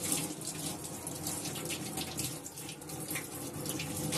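Running water: a steady, splashing hiss with small crackles through it.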